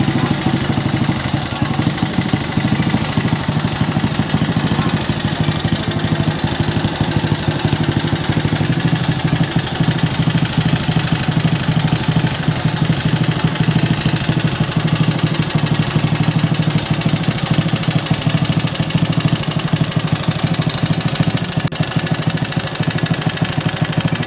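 Honda Supra X single-cylinder four-stroke engine idling steadily with a rough, noisy mechanical clatter. The mechanic thinks it could come from the cylinder head, where a wrong valve clearance, a worn camshaft or a slack cam chain is typical, or from the cylinder block.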